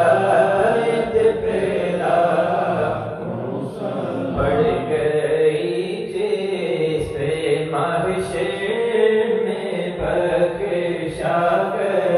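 Islamic devotional chanting by men's voices, sung in long melodic phrases with brief breaks every few seconds.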